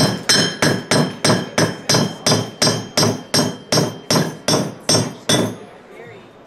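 Hammer striking metal on a small steel anvil in a steady rhythm, about three blows a second, each with a bright metallic ring. The blows stop about five and a half seconds in.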